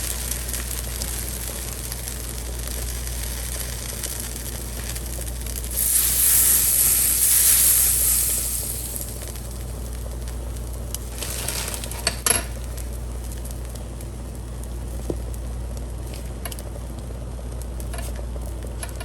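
Custard-soaked brioche slices frying in butter on a hot skillet: a steady sizzle that swells louder for about two and a half seconds around six seconds in, with a few light clicks around twelve seconds, over a steady low hum.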